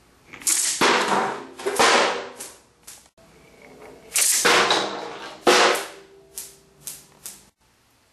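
Steel ball bearings fired by a magnetic Gauss gun slamming into an aluminium tin pan: sharp metallic bangs, the loudest ringing on briefly, in two bursts of four or five hits each.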